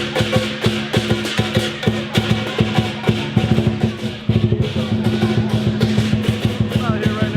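Music with a steady drum beat under held bass and instrument notes.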